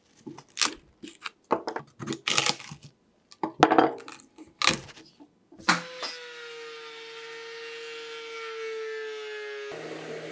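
A chisel prying and splitting loose bark off a small log, with about a dozen sharp cracks and snaps as pieces of bark break away. About two-thirds of the way in a steady machine hum starts, and near the end it changes to the steady hum of a random orbital sander.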